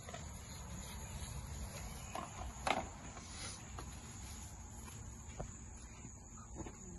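Steady high-pitched insect chirring over a low outdoor rumble, with one sharp click a little under three seconds in and a few fainter ticks.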